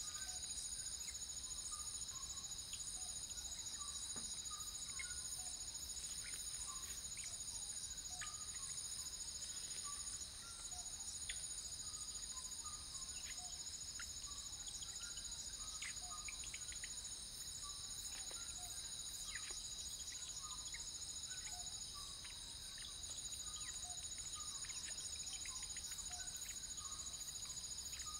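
Nocturnal insect chorus: several steady, high-pitched trills layered together without a break, with many short chirping calls scattered lower down.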